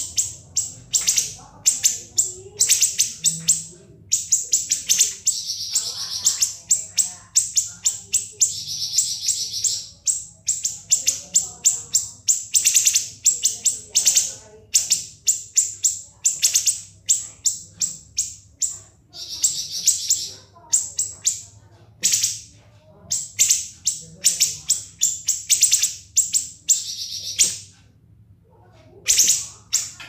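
Siri-siri songbird singing a rapid, stuttering run of sharp, high-pitched notes and short trills, in quick bursts with brief pauses, over a faint low hum.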